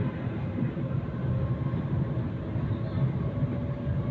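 Sydney Trains train running, a steady low rumble with faint steady whining tones above it.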